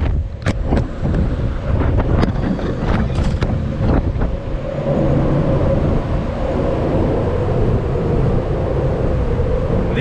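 Hurricane-force wind buffeting the microphone: a loud, gusting low rumble, with a few sharp knocks in the first four seconds and a faint steady whistle in the second half.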